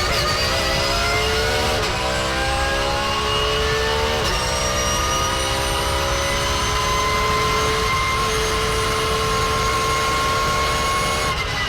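Porsche race car at full throttle with straight-cut gear whine, its engine note climbing and then breaking at quick upshifts about 2 and 4 seconds in. After the second shift the pitch keeps rising slowly in a higher gear, and it drops near the end as the car lifts off.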